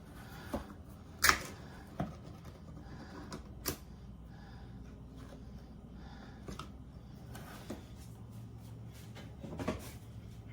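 Scattered light clicks and knocks of a can and kitchen utensils being handled, the loudest about a second in, over a faint low hum.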